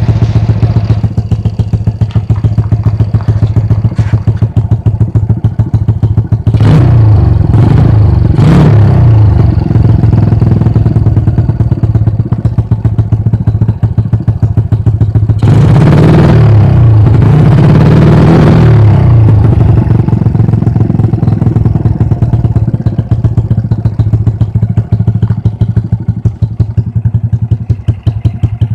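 Honda Revo Absolute's single-cylinder four-stroke engine idling through an aftermarket oval exhaust, with a choppy, helicopter-like beat. The throttle is blipped three times in quick succession, then revved twice more for a few seconds each before it settles back to idle.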